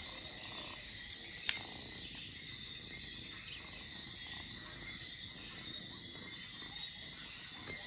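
Chorus of insects and frogs: a steady high drone with many short, high chirps repeating irregularly. A single sharp click comes about a second and a half in.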